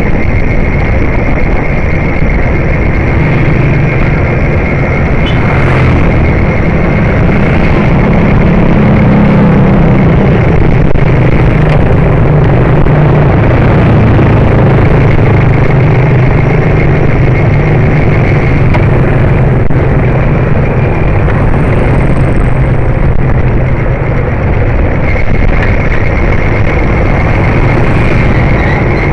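Loud, steady rushing of wind on a small action camera's microphone while riding a bicycle.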